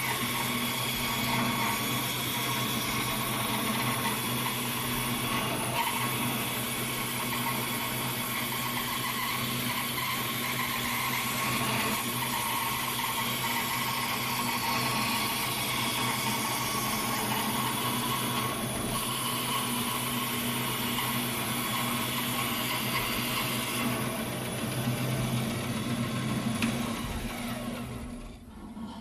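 Vertical bandsaw with a 6 mm blade running and cutting a circle in a wood block on a circle-cutting attachment: a steady machine hum with the blade cutting through the wood, dying away about a second before the end.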